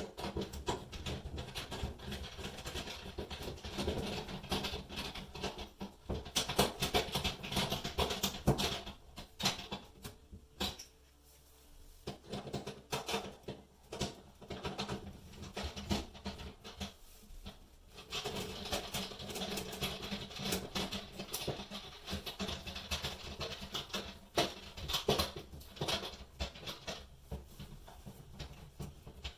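A molly bolt being tightened by hand in drywall: irregular scraping and clicking of the screwdriver and bolt, pausing briefly partway through.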